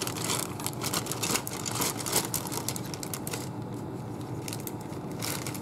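Clear plastic bag crinkling as hard plastic model-kit sprues are slid back into it, with quick, irregular clicks of the plastic parts knocking together. It goes quieter a little past halfway through.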